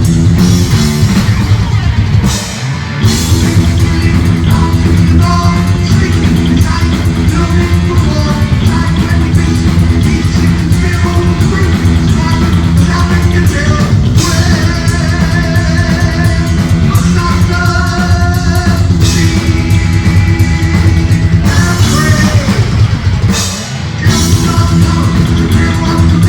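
Heavy metal band playing live: distorted electric guitars, bass and drum kit, with singing. The playing breaks off briefly twice, about two seconds in and again near the end.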